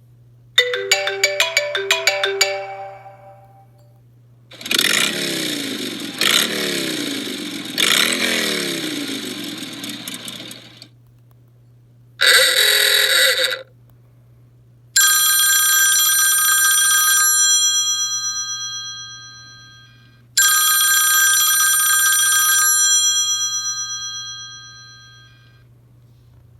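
iPhone 12 mini ringtones and alert tones played one after another, with short gaps between them. First comes a quick run of plucked notes, then a pattern of sliding, falling notes repeated three times, then a short burst, and then a bell-like chime that rings out and fades, played twice.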